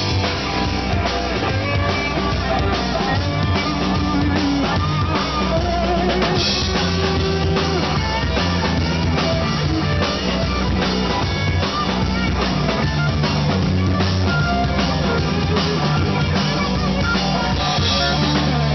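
Live rock band playing without vocals: a drum kit with bass drum and cymbals keeping a steady beat, with electric guitar and bass guitar through stage amplifiers.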